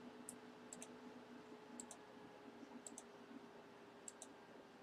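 Faint computer mouse clicks, about one a second, most of them a quick double tick, each one re-running an online randomizer.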